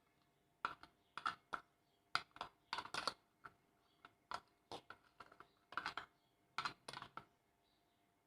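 A spoon stirring honey into ajwain-leaf juice in a small bowl, clinking against the bowl in faint, irregular clicks, a few a second.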